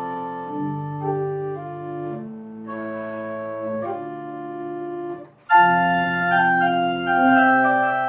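Pipe organ playing slow, held chords. About five seconds in it breaks off for a moment, then comes back louder and brighter.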